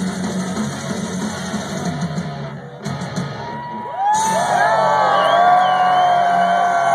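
A metalcore band playing live through a large outdoor PA, heard as loud, distorted music on a phone microphone. The music briefly dips a little before halfway, and about four seconds in it comes back louder, with many voices from the crowd whooping and shouting over it.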